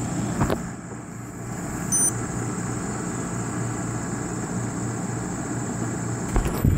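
GE 9,500 BTU window air conditioner running with its compressor and fan on, a steady hum. A click about half a second in and a knock near the end.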